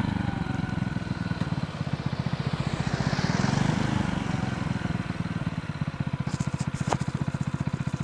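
Motorcycle engine running at low revs, its exhaust beating in a quick, even pulse. A passing truck adds a brief rush of noise about halfway through, and a few light clicks come near the end.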